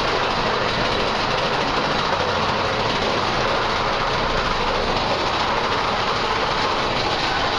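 Mine-train roller coaster cars running along the track, a steady rumble and rattle heard from inside a moving car.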